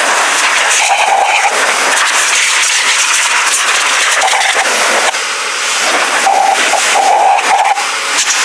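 Shelandy car and motorcycle blower dryer running on high power with no heat: a loud, steady rush of air from its hose nozzle as it blows crumbs out of a fabric child car seat. A short hum in the airflow comes and goes a few times as the nozzle moves.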